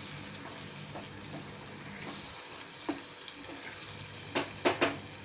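Spatula stirring a potato and fenugreek curry in a pan, with the water just added and the gravy sizzling on the heat. There are scattered scrapes and one knock about three seconds in, then three sharp knocks of the spatula against the pan near the end, the loudest sounds.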